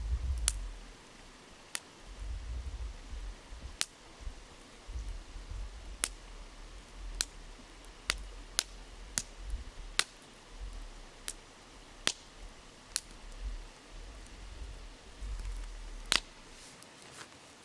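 Wood campfire crackling, with sharp irregular pops about once a second and a brief flurry of them near the end, over the steady rush of a shallow river. A low rumble comes and goes underneath.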